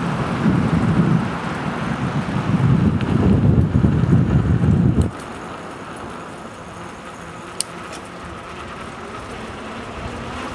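Wind buffeting the microphone in a heavy, uneven rumble that cuts off suddenly about five seconds in, leaving a steady outdoor background hum of distant traffic with one sharp click.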